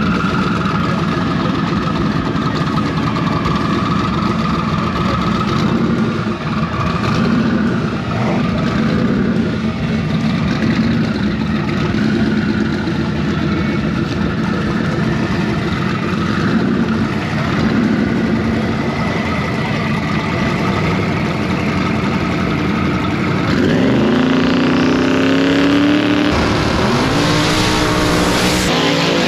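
Drag race car engine running steadily at a loud level, then revving up hard near the end, its pitch climbing twice in quick succession as the car accelerates.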